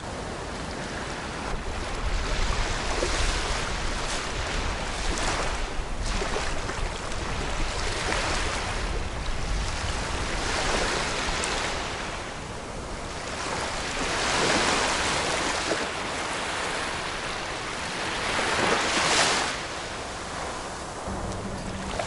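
Small sea waves washing up onto a sandy beach and drawing back, the wash swelling and fading every few seconds.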